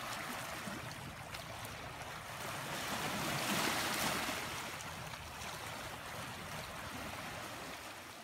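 Small sea waves washing in over rocks and pebbles at the shoreline, with one wave surging louder about three and a half seconds in. The sound fades out at the very end.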